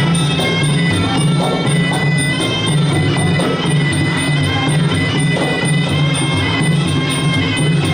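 Live traditional Khmer boxing ring music: a reedy sralai oboe plays a continuous wailing melody over a steady rhythm of drums and small cymbals.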